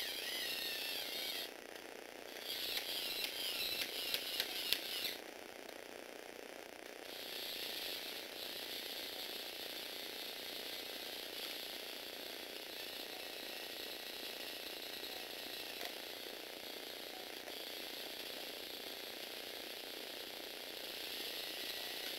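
Lego Technic 8294 excavator's electric motor and plastic gear train whirring as the arm moves. It runs in two short spurts in the first five seconds, the second with a rapid rattle of clicks, then settles into a long steady whir from about seven seconds on.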